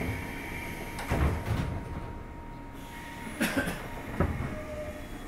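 Cabin of a JR 201 series electric train at a stop: a few sharp knocks and thuds from the doors closing, about a second in and again around three and a half to four seconds.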